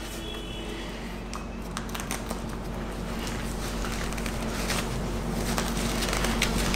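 Aspida Perseus knee-guard sleeve of stretchy fabric rustling and rubbing against the leg as it is pulled up over the knee, with light scuffing handling sounds, over a steady low hum.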